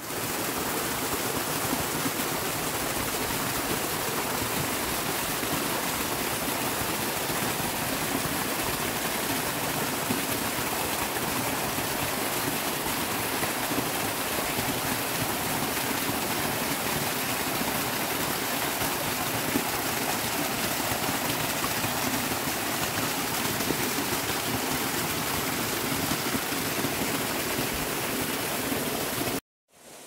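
Flowing water rushing steadily and loudly, an even hiss-and-rumble of a spring or stream with no change, cutting off abruptly near the end.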